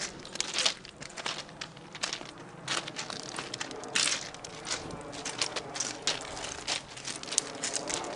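Footsteps of several people crunching on loose gravel as they walk, an uneven run of crunches a few per second.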